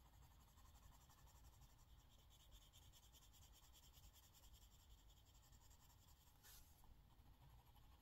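Faint scratching of a colouring tool stroked back and forth across a colouring-book page while shading, with one louder stroke about six and a half seconds in.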